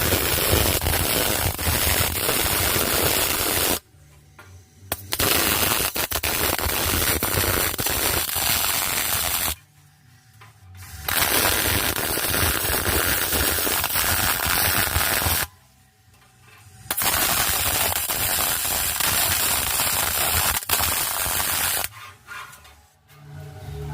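Short-circuit MIG welding arc, a steady rapid crackle, in four runs of about four to five seconds each with short pauses between them.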